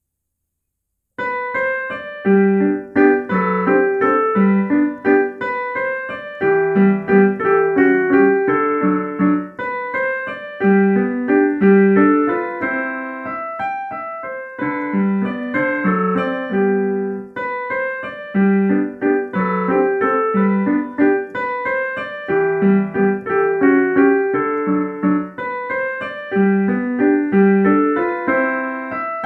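Digital piano playing a classical piece, starting about a second in after silence: a steady run of evenly paced notes over a repeating pattern in the lower register.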